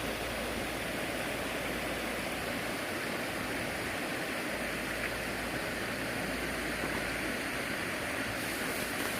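Water of a mountain valley stream rushing steadily.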